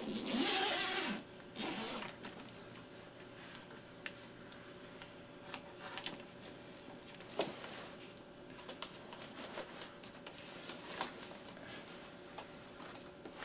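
Zipper on a tent carry bag pulled open in two quick runs, the first the longest, followed by rustling and light clicks as the bag's contents are handled.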